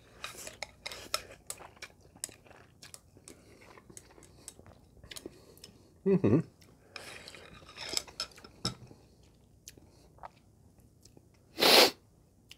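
A person eating instant noodles: chewing, with many small clicks of chopsticks against a ceramic bowl. There is one louder short sound about six seconds in and a loud brief noisy burst near the end.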